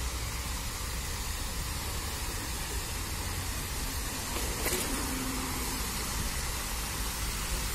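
Fountain jet of water splashing into its basin: a steady rushing hiss, with a low rumble of wind on the microphone underneath. A single short click about halfway through.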